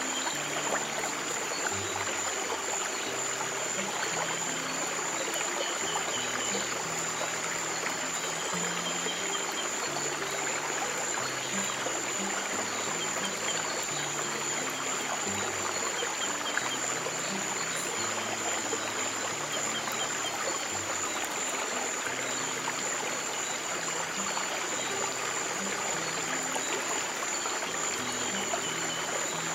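Steady running water, like a trickling stream, with slow, soft low piano notes held underneath and a thin steady high tone.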